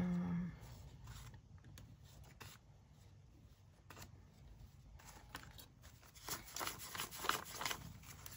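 Paper banknotes handled and flipped through by hand: soft crisp rustles and snaps of the bills, busiest in the last two seconds. A brief vocal sound is heard at the very start.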